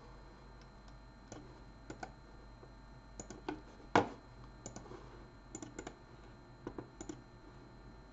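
Computer mouse and keyboard clicking: scattered, irregular short clicks, some in quick pairs and triplets, with one much sharper, louder click about four seconds in.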